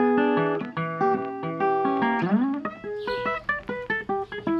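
Background music played on guitar: plucked notes and chords, with one note sliding upward about halfway through.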